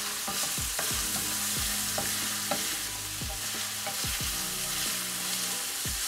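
Diced smoked calabresa sausage sizzling in olive oil in a stainless steel frying pan, stirred with a wooden spoon that scrapes and knocks against the pan now and then.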